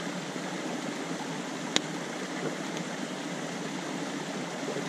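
Creek water running with a steady rushing hiss, and a single sharp click about two seconds in.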